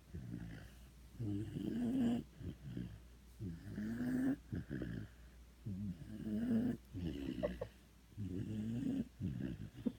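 A dog snoring in its sleep, a rattling snore about every two and a half seconds.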